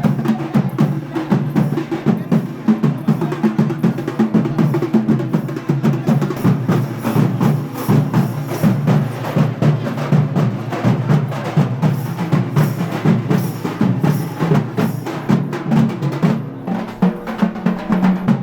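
Fast, dense drumming with rapid, closely spaced strokes that keep going without a break.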